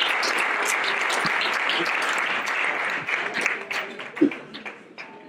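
Audience applauding: dense clapping that thins out and fades over the last two seconds, with one brief louder sound a little after four seconds in.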